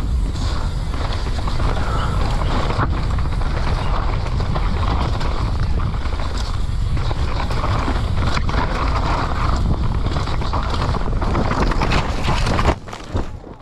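Downhill mountain bike ridden fast over a rough dirt trail: a constant wind rush on the GoPro microphone mixed with the bike's chatter and knocks. Near the end comes a sharp hit as the rider crashes, and the noise suddenly falls away.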